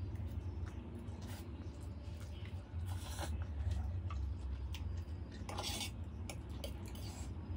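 Eating noises: a metal fork scraping and clinking against stainless steel plates of noodles, with chewing, in a few brief bursts over a steady low hum.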